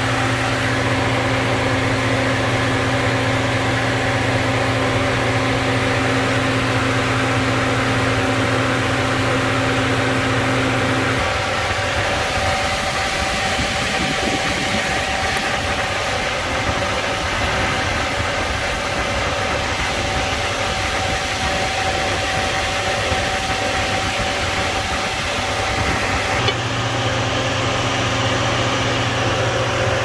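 A 2007 GMC Denali's engine idling steadily. A low hum under it drops out about a third of the way in and comes back near the end.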